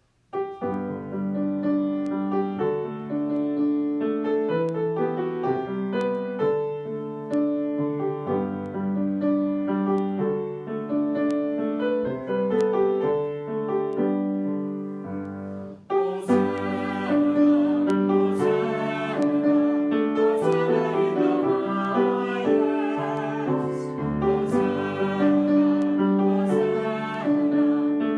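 Piano music starting suddenly just after the opening, with steady chords and melody notes in an even rhythm. About sixteen seconds in the sound becomes fuller and brighter, with sharp attacks reaching high up.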